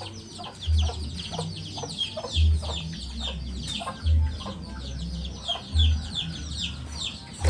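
Chickens clucking and small birds chirping continuously in the background, with a low thump repeating about every second and a half to two seconds, louder than the birds.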